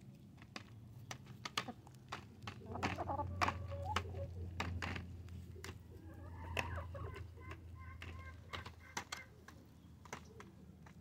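A flock of hens pecking at pumpkin pie in a glass dish: many sharp taps of beaks on the dish, with clucking in the middle.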